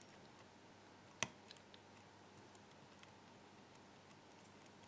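Lock pick and tension wrench working the pin stacks of a Sargent cylinder: one sharp metallic click about a second in, then a few faint ticks, otherwise near silence.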